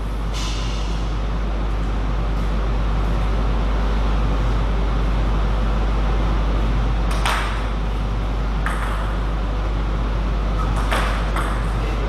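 Steady low electrical hum and hiss, with a few sharp clicks of a table tennis ball bouncing: one about seven seconds in and a couple near the end.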